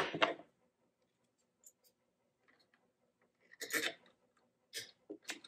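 Hand-fitting a CNC spindle mount and its bolts onto a Z-axis carriage: a sharp knock at the start, a short scrape about three and a half seconds in, then a few small clicks near the end.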